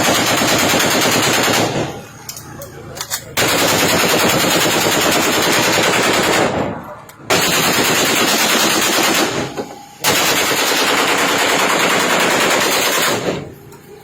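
Automatic gunfire in long sustained bursts of about three seconds each, four stretches separated by short pauses, the shots coming too fast to separate.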